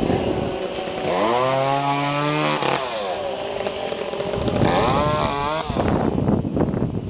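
Chainsaw revving twice: about a second in it winds up in pitch and holds for over a second before dropping off, then revs up again briefly near five seconds. Wind rumbles on the microphone in between.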